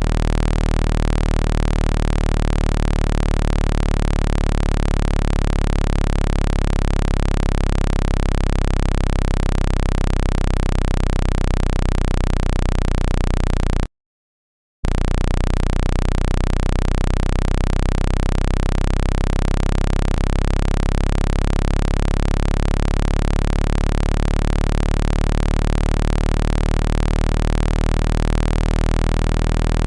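Low-pitched electronic buzzing tone, a speaker water-ejection sound meant to vibrate trapped water out of a phone's loudspeaker, holding steady. About halfway through it cuts out completely for about a second, then resumes.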